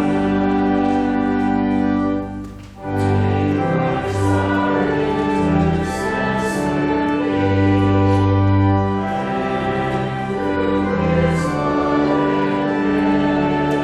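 A hymn sung by voices over organ accompaniment, in held chords that change every second or so, with a brief break between lines about two and a half seconds in.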